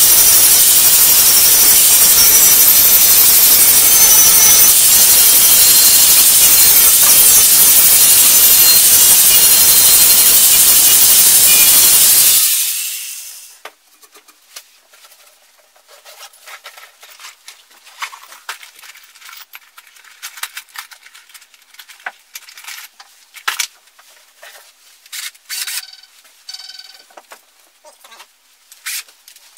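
Angle grinder grinding on a steel climbing spike, a loud steady grinding noise that winds down about twelve seconds in. Light clicks and knocks of tool handling follow.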